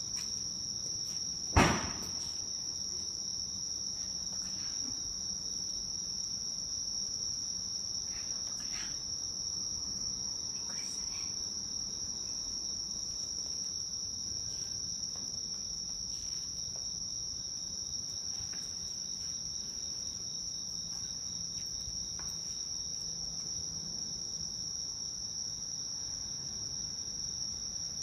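Autumn night insects singing, a steady, dense high-pitched chorus. A single sharp knock about a second and a half in.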